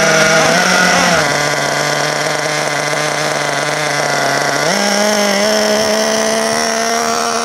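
Two-stroke SH .21 nitro engine in a Turnigy Rumble 1/8 buggy running with its high speed needle set too rich. Its pitch drops about a second in and rises again near five seconds in. This is the sound of a rich mixture, with too much fuel and not enough air.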